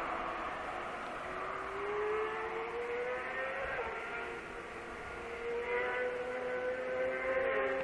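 BMW sportbike's engine heard from a distance, accelerating hard and climbing in pitch through the gears, with a drop in pitch at each upshift, about 4 seconds in and again near the end. It gets louder near the end as the bike approaches.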